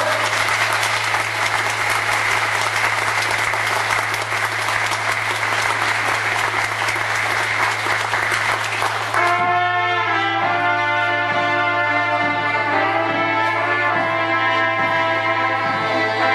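Audience applauding for about nine seconds, then a small folk band of trumpets and accordion starts playing a tune over a steady beat.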